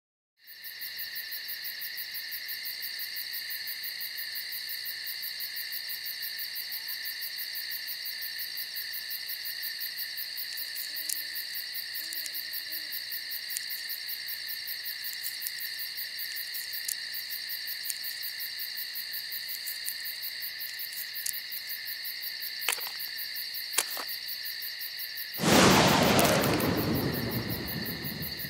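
Night ambience of a cricket chorus, a steady fast-pulsing high trill, with a couple of faint low hoots and scattered small clicks. About 25 seconds in, a loud rushing hiss bursts in and fades away over a few seconds.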